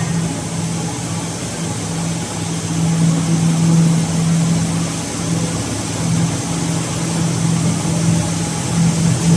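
Hydraulic cotton baler running: a steady mechanical hum with an even low drone and no pauses.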